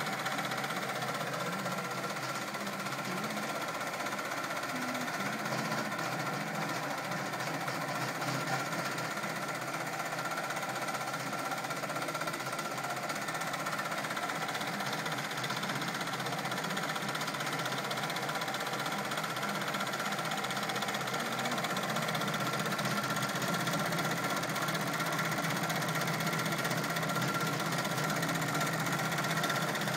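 Brother multi-needle embroidery machine stitching a monogram into a velvet stocking cuff, its needle running steadily up and down at speed with a constant mechanical hum.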